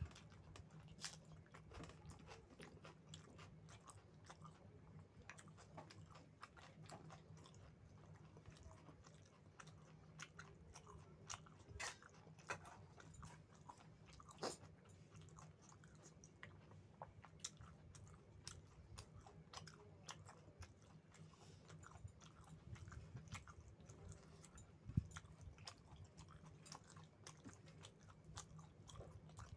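Faint close-up chewing and biting sounds of a person eating rice with chicken curry: scattered wet mouth clicks and smacks, with one sharper click a few seconds before the end. A faint steady low hum runs underneath.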